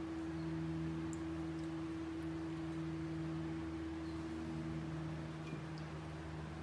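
A steady low hum made of a few level tones, with a few faint light ticks; one of the tones fades out about five seconds in.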